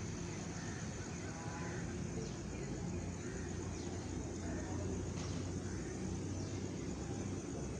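Steady low rumble of a distant approaching train heard from beside the track, with a few faint chirps over it.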